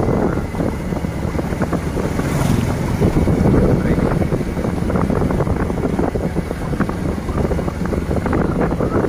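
Wind buffeting the microphone: a loud, uneven rumble that runs steadily throughout.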